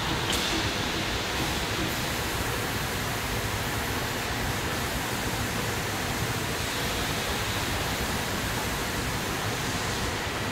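Steady machinery noise in a glass-processing hall: an even rushing hiss with no distinct strokes, knocks or tones.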